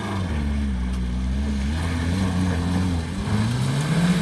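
Opel Frontera's diesel engine pulling under load, running steadily and then revving up with a rising pitch near the end.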